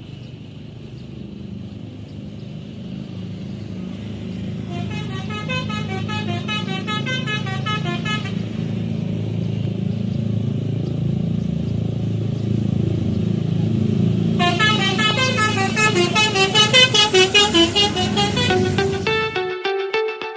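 A Po Budiman bus's telolet horn plays two runs of rapid, changing notes, one about 5 s in lasting about three seconds and a louder one from about 14 s lasting about five seconds. Underneath, the bus's engine rumble grows steadily louder. Music with guitar starts just before the end.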